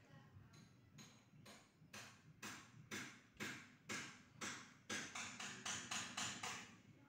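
A hand patting a cat in quick rhythmic strokes, about two a second, coming faster about five seconds in.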